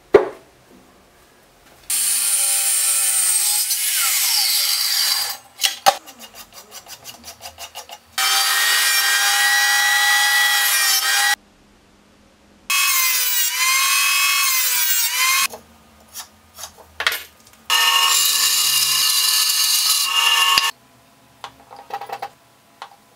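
A woodworking power tool cutting a lime-wood board in four separate passes of about three seconds each. Each pass starts and stops abruptly and is a steady, loud, high-pitched cutting noise. Between the passes come quieter clicks and knocks, including a run of evenly spaced ticks between the first two passes.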